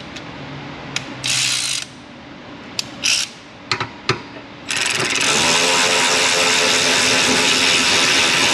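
Power ratchet on a triple-square socket, blipped in a few short bursts, then running steadily from about five seconds in as it spins out a long brake caliper bracket bolt.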